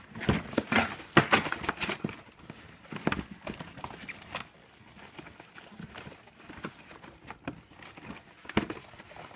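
Cardboard toy box being handled and opened: a quick flurry of knocks and scrapes in the first two seconds, then scattered taps, with one louder knock near the end.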